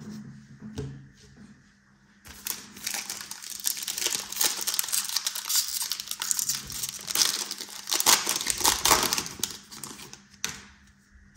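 Foil wrapper of a Panini Contenders football card pack being torn open and crinkled: a dense, continuous crinkling that starts about two seconds in and dies away near the end.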